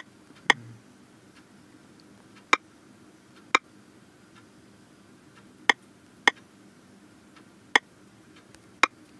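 Key-press clicks from typing on a smartphone's on-screen keyboard: about eight sharp single clicks at irregular intervals, as letters are deleted and retyped.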